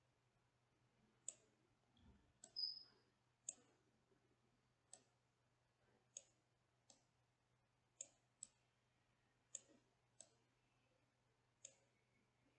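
Computer mouse clicking about a dozen times, single clicks spaced a second or so apart, while blocks are selected and wired in Simulink. A short high-pitched squeak about two and a half seconds in is the loudest sound; a faint steady hum sits underneath.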